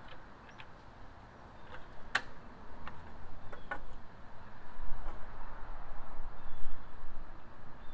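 Scattered sharp clicks and knocks of pool-cleaner parts being handled, with a low rumble building in the second half and a few faint high chirps.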